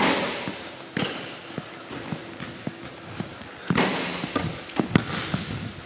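A basketball thudding and bouncing on a hardwood gym floor, each hit echoing around the large hall. There is a sharp hit at the start and another about a second in, then a louder cluster of hits about four seconds in as a jump shot comes down.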